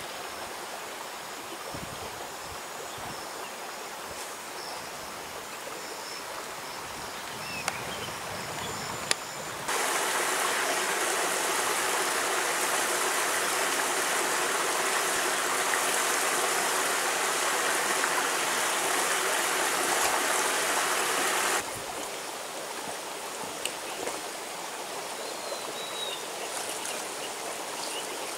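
Shallow stream running over rocks, a steady rush of water. It jumps suddenly much louder about ten seconds in and drops back suddenly about twenty-two seconds in. A few faint high chirps sit above the water sound.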